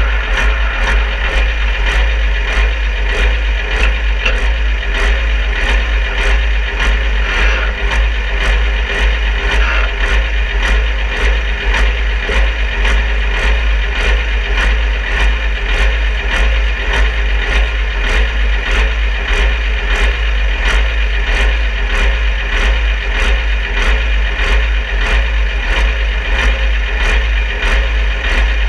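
Supersport-class pulling tractor's engine running steadily at a low, even speed, heard up close, with a deep rumble and a faint regular tick about twice a second.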